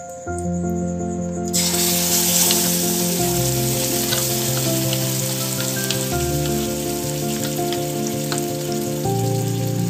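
Mango puree sizzling as it fries in hot ghee in a pan, the hiss setting in about one and a half seconds in, with a few small clicks. Background music of held chords changes every three seconds or so underneath.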